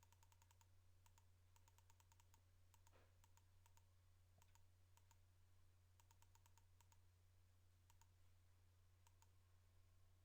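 Near silence: a steady low hum with faint, irregular clicks scattered throughout.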